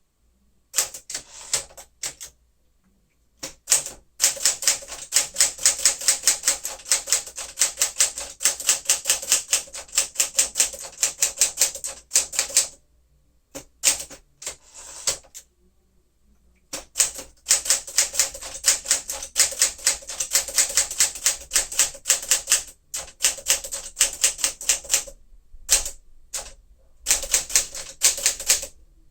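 A 1959 Smith-Corona Sterling manual typewriter being typed on: fast runs of crisp keystrokes and typebar strikes, broken by a few short pauses.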